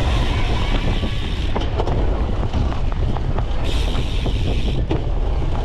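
Cyclocross bike riding over rough ground, picked up by a camera mounted under the saddle: a steady low rumble of tyres and wind, with many sharp rattles and clicks from the bike.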